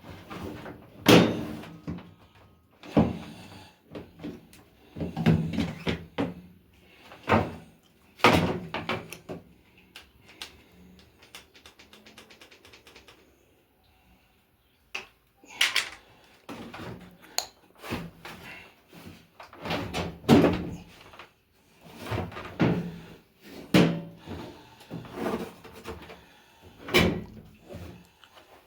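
Clunks, knocks and scrapes from a Defy top-loader washing machine's loose drum and sheet-metal cabinet as its worn front suspension rods are worked free and pulled out, with a quick run of rattling ticks midway.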